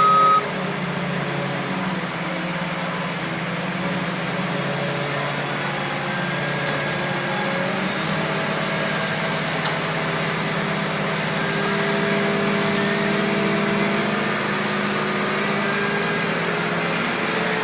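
A heavy vehicle's engine running steadily, with the last beep of a backup alarm at the very start.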